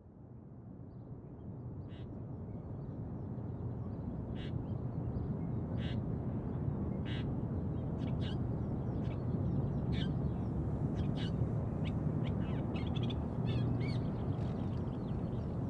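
Outdoor ambience fading in over the first couple of seconds: a steady low rush with short bird calls, a few at first and more often after about ten seconds.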